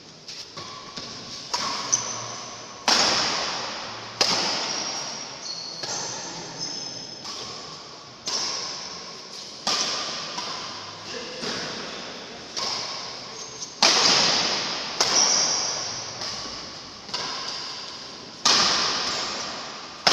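Badminton rally: rackets strike the shuttlecock about every second and a bit, each sharp hit echoing through a large hall, with short high squeaks of shoes on the court between the hits.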